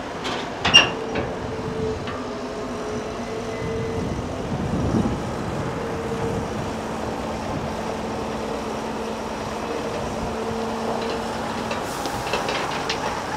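Heavy diesel construction machinery running steadily. There is one sharp metallic clank about a second in and a few lighter clanks near the end.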